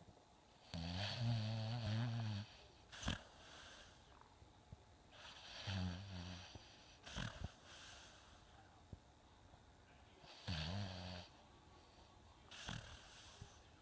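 Snoring: three low buzzing snores about four to five seconds apart, each with a breathy puff of air around it.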